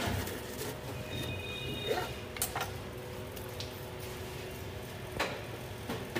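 A knife cutting through a toasted, grilled panini on a wooden board at the start, followed by a few short knocks and clicks over a steady background hum.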